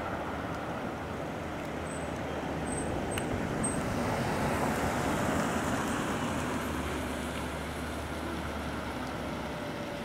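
Steady background noise, like distant traffic or wind, that swells about four to six seconds in and eases off again, with a few faint, short, high chirps about two to four seconds in.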